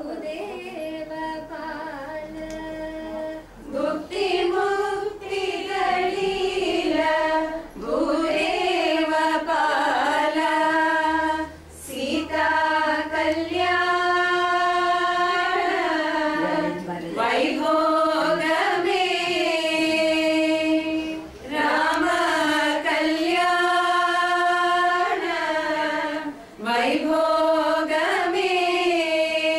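A group of women singing a slow song together in unison, without accompaniment, in long held phrases with short pauses for breath between them.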